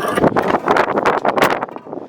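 Strong wind buffeting the microphone, with dense, irregular crackling and rattling.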